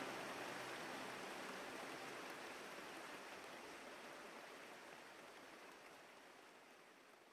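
The closing fade-out of a rock track's outro: a hiss-like wash of noise, with the last low held notes dying away about a second in, fading steadily toward silence.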